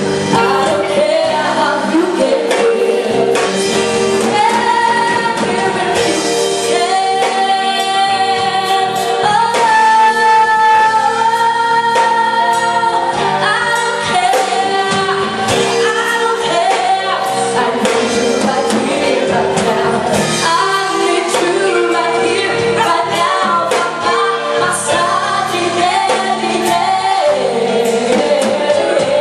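A woman singing lead with a live band behind her, with long held notes over drums, bass and guitar.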